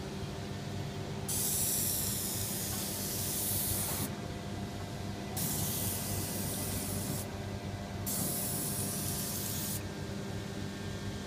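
Dry ice blasting gun triggered in three hissing blasts, each one to three seconds long, over a steady low machine hum.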